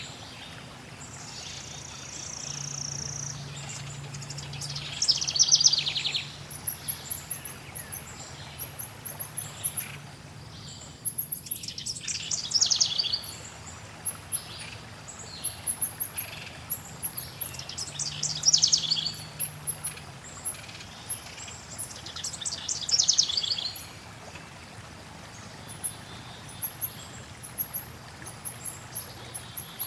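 Forest songbirds singing: a trilled song phrase comes back about every six seconds, with very high thin chips in between, over a steady hiss of flowing water.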